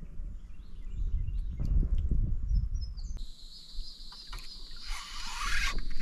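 Outdoor ambience by a creek: a low rumble with faint bird chirps, then a sudden change about three seconds in to a steady high insect drone, with a rush of noise building near the end.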